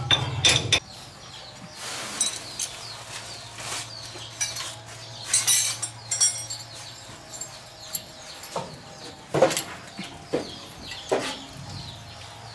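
Scattered knocks and clatter of hands and tools working on the rickshaw's underside, with poultry clucking and chirping in the background. A low hum cuts off under a second in.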